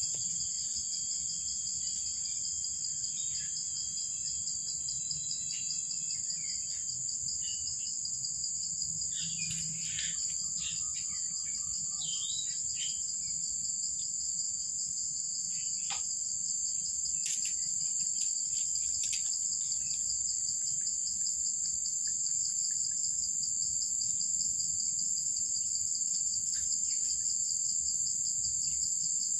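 A steady, high-pitched chorus of insects droning without a break, with a few faint short chirps near the middle.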